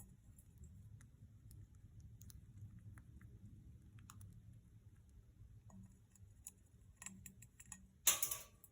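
Quaker parrot eating: scattered small clicks and cracks of its beak working at its food, with one brief louder scratchy rustle near the end.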